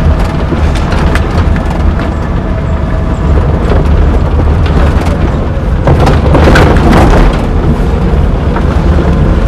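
Wind buffeting the microphone with a heavy low rumble from a vehicle moving along a dirt road. The rumble runs steadily throughout.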